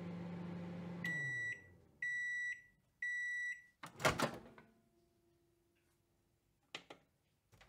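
Microwave oven finishing its cycle: its running hum winds down, then three high beeps about a second apart signal the end of cooking, and the door latch pops open with a clunk. Two short clicks follow near the end.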